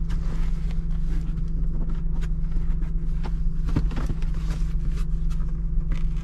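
Car engine idling steadily, left to run because it has not been run in a long time, with scattered light clicks and knocks over it.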